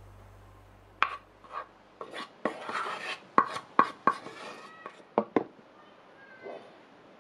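Wooden spoon and raw chicken pieces knocking and scraping against a glass baking dish as the pieces are arranged: about ten sharp clinks with a short glassy ring, with some scraping between them.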